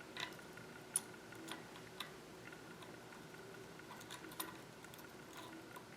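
A few faint, irregular light clicks and taps as bicycle cassette cogs and spacers are handled and fitted onto the rear hub.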